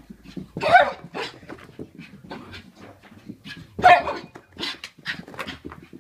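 A dog panting hard in quick, short breaths while running zoomies, with two louder bursts, one a little under a second in and one about four seconds in.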